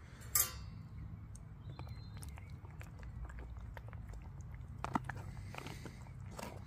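Foil-lined pouch of a freeze-dried chili con carne meal crinkling as a spoon stirs the just-added hot water into it, with a sharp crinkle about half a second in and a few spoon scrapes and taps near the end, over a steady low hum.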